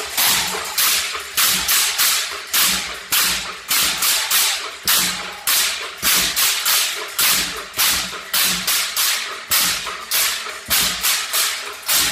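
A bottari band of many men beating large wooden wine barrels with sticks, in loud unison strokes at about two to three a second, each with a dull hollow thud under a sharp crack.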